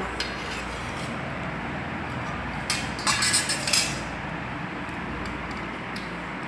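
Metal clinking and scraping on a stainless-steel plate as watermelon pieces and the steel tube cutter are handled, in a short cluster about three seconds in, over a steady background noise.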